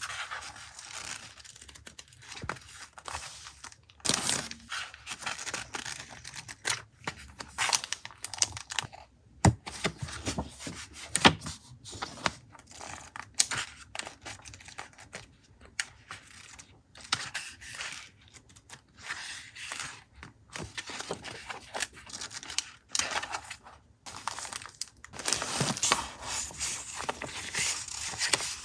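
Paper packaging being handled and torn open, crinkling and rustling in irregular bursts, busier near the end.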